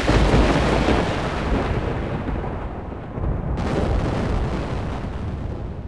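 Thunder sound effect: a loud clap that rumbles and slowly dies away, then a second clap about three and a half seconds in.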